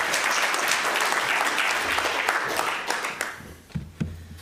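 Audience applauding, dying away about three seconds in, followed by a couple of soft low knocks near the end.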